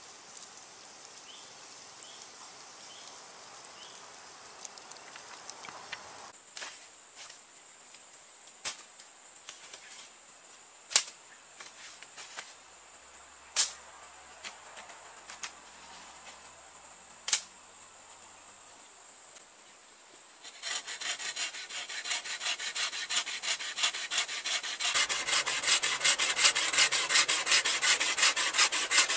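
A wooden pole being rubbed by hand with an abrasive tool in quick back-and-forth strokes, several a second, starting about two-thirds of the way in and growing louder. Before that, a few sharp wooden knocks sound over a steady high insect drone.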